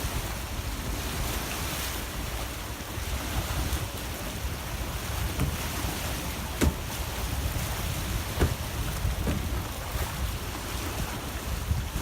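Strong wind buffeting the microphone with a low rumble over the wash of sea waves. A few sharp clicks sound in the second half.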